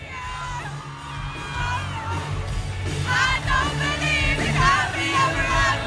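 A live pop band playing with a lead singer, heard from within the audience, with fans yelling and whooping along.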